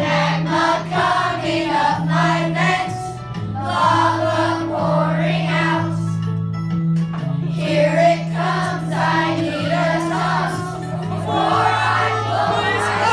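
A group of children singing a song together, with instrumental accompaniment holding steady low notes underneath.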